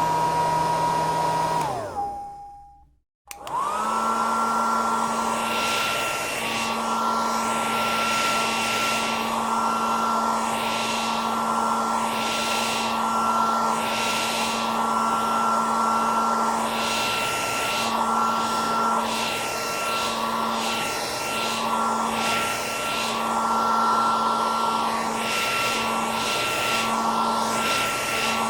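Hair dryer running, then winding down with a falling whine and switching off about two seconds in. After a moment of silence a hair dryer switches on, its motor whine rising quickly to a steady pitch, and runs on with a rush of air that swells and fades about once a second.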